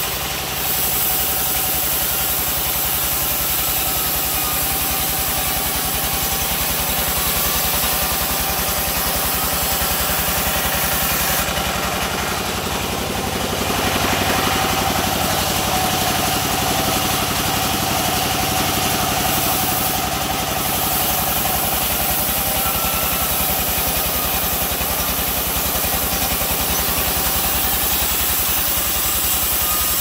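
Engine-driven sawmill running steadily, its engine and saw drive droning throughout, with a high hiss from the saw as wattle-wood planks are fed through.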